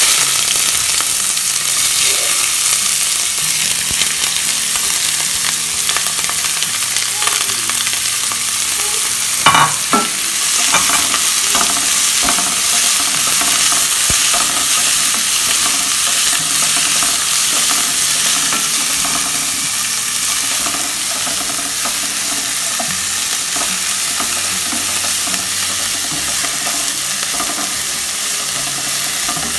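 Chopped onions frying in hot oil in a non-stick pan, sizzling loudly and steadily as they are stirred with a wooden spatula. There is a single sharp knock of the spatula against the pan about nine and a half seconds in.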